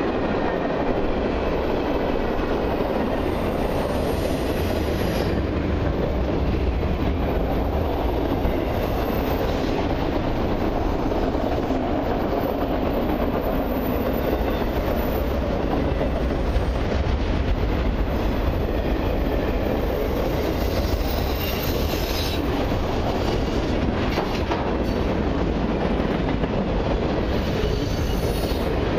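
Freight cars of a long mixed freight train rolling past at steady speed, a continuous rumble of wheels with clickety-clack over the rail joints. Faint high-pitched wheel squeals come in a few times, most clearly about three quarters of the way through.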